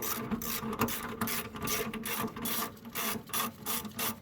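Hand ratchet with a 10 mm socket and extension clicking in quick, even back-and-forth strokes, about four a second, while loosening a bolt on the engine's plastic airbox cover.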